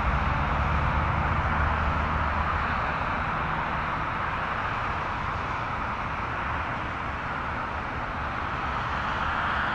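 Jet engines of a twin-engine airliner at takeoff thrust on its takeoff roll: a steady rushing jet noise with a low rumble underneath.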